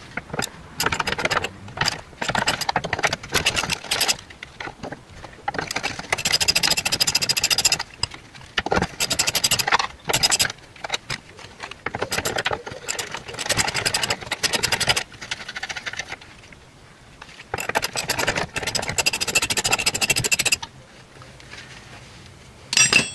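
Hand socket ratchet clicking in quick runs, about five bursts with short pauses, as the bolts holding a classic Mini's rear radius arm bracket are undone.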